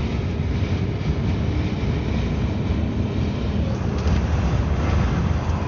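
Steady low rumble inside a car cabin: the car's running noise mixed with a strong wind pressing on the car.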